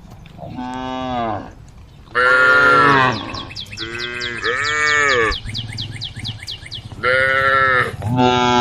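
Cattle mooing: several loud calls one after another, each rising then falling in pitch. A fast run of short, high chirps sounds through the middle.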